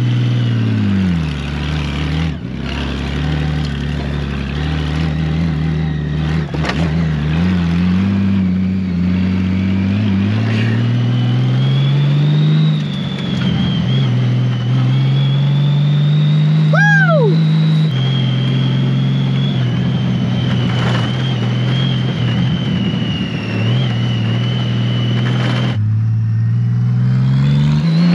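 Honda Gold Wing's flat-six engine running at low trail speed, its pitch rising and falling with the throttle. A thin high whine rides above it through the middle, and near the end the engine pitch climbs steadily.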